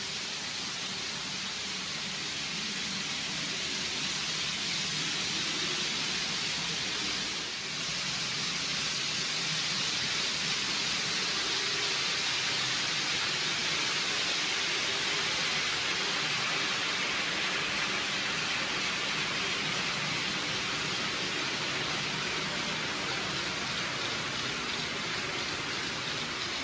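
A steady hiss with no clear rhythm or pitch, dipping briefly about eight seconds in.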